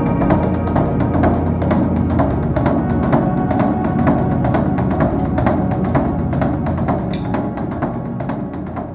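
Background music with a steady beat of sharp percussion strokes over sustained tones, fading out near the end.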